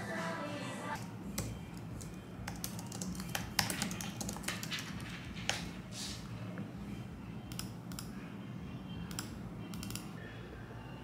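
Typing on a slim, low-profile Apple Magic Keyboard: irregular runs of light key clicks with short pauses, starting about a second in and thinning out near the end.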